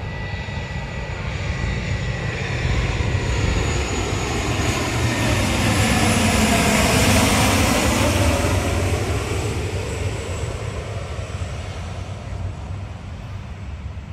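A low-flying Bangladesh Air Force airplane passes overhead coming in to land. Its engine noise grows to its loudest about seven seconds in, then fades away.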